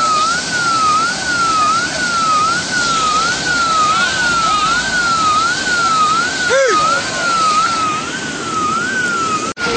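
Emergency vehicle siren wailing fast, its pitch rising and falling about once every three-quarters of a second over a steady noisy background, cutting out for a split second near the end.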